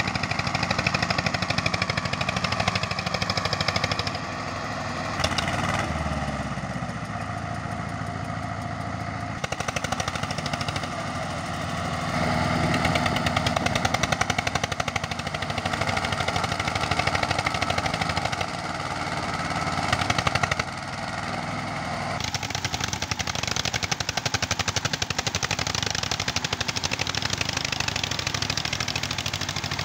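Small diesel tractor engines running under load with a fast, heavy clatter while pulling a trolley loaded with sugarcane.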